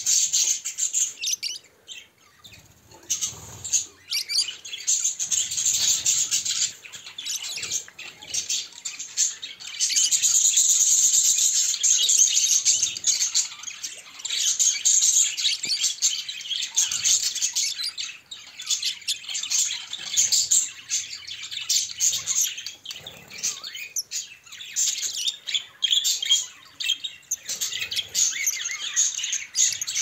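A flock of budgerigars chattering and warbling: a dense, continuous run of high chirps with a short lull about two seconds in.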